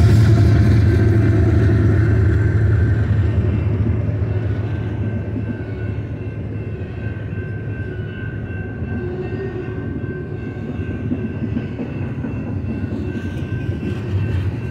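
Double-stack intermodal train's well cars rolling past over the rails, a steady rumble of wheels and cars. It is louder at first, fades over the first several seconds as the locomotives move off, then holds level.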